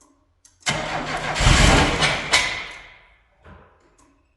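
Pontiac Fiero GT's 2.8-litre V6 firing up suddenly and revving briefly, then the sound fading away about three seconds in as it winds down.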